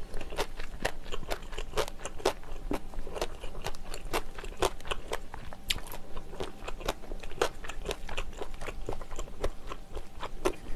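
A person chewing a mouthful of spicy jjambbong noodles, vegetables and beef brisket close to the microphone. The chewing goes on steadily, with frequent sharp wet mouth clicks and crunches, several a second.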